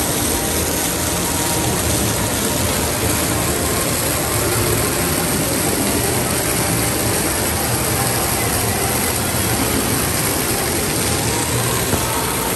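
Steady rush and splash of an indoor fountain's water jet falling into its basin, an even, unbroken noise.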